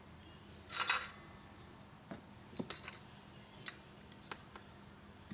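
A printed circuit board and its parts being handled on a workbench: a short scrape about a second in, then a few light clicks and taps. A faint steady low hum runs underneath.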